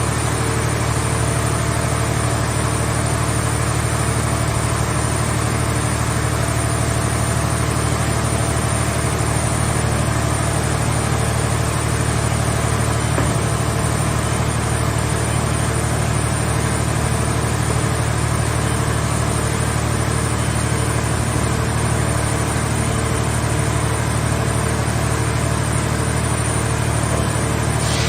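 A car-shell baler's engine and hydraulic power unit running steadily at idle, a constant low drone that does not change.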